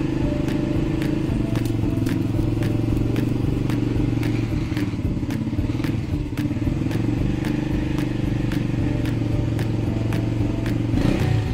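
Motorcycle engine idling steadily, with a regular light clicking over the hum.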